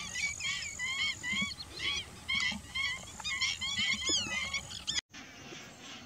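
A large flock of waterbirds calling: many short calls overlapping in quick succession, each rising and then falling in pitch. The calls cut off abruptly about five seconds in, leaving a quieter background.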